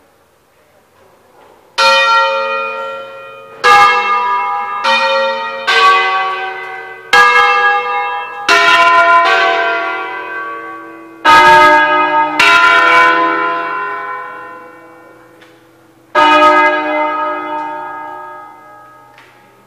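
Tuned church bells in a bell tower rung as a concerto: about nine single strokes on bells of different pitch, irregularly spaced, each one ringing on and dying away, with a longer pause before the last stroke.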